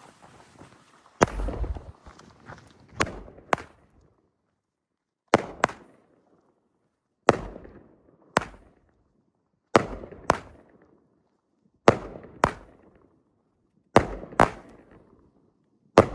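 Consumer firework cake firing: sharp bangs in pairs about half a second apart, a pair roughly every two seconds, each bang trailing off in a short echo.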